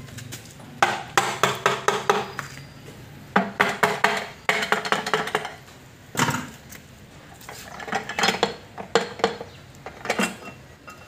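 Quick runs of sharp metallic clinks and taps, several strikes in a row twice, then scattered single ones, from work on a Mazda Bongo 4x4 manual transmission's metal case and top cover as it is being worked loose.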